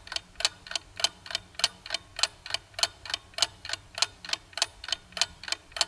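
Clock-ticking countdown sound effect: rapid, even ticks, about five a second, with some louder than others, marking the time allowed to answer a quiz question.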